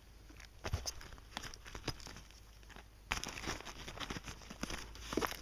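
Light rustling and scattered small clicks of a bag and small items being handled while packing, growing busier about three seconds in.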